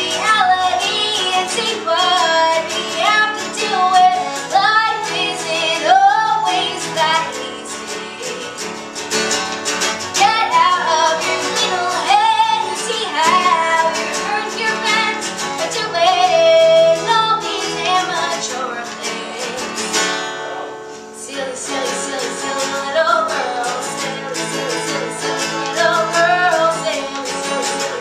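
A woman singing with her own acoustic guitar accompaniment, strumming steadily under the vocal line, with a short break in the singing about two-thirds of the way through.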